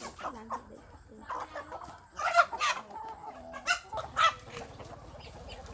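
Chickens clucking: a string of short separate calls, the loudest about two and a half seconds in and another pair near four seconds.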